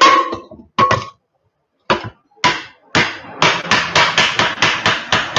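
Repeated metal knocks on a pressure cooker as its bulged, blown-out bottom is beaten flat. A few ringing knocks come first, then about a second's pause, then the knocks come faster, around three to four a second.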